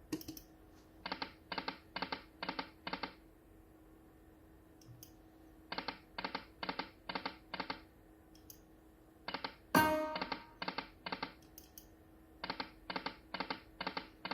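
Slot machine game spinning four times. Each spin ends in five quick reel-stop clicks about a quarter second apart as the reels land one after another, over a faint steady hum. A brief, louder tonal sound comes with the third spin.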